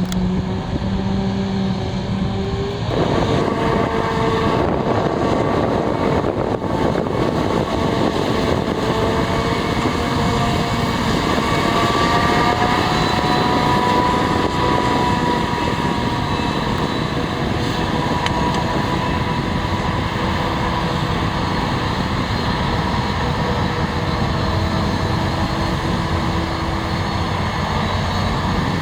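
Heavy diesel farm machinery running steadily, tractor and forage harvester engines with a droning whine. The sound changes abruptly about three seconds in, then runs on with slowly shifting engine tones.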